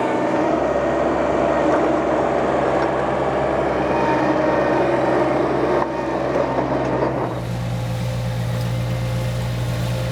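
Engine of a compact skid steer running steadily, with a strong low hum. Its sound changes abruptly about seven seconds in.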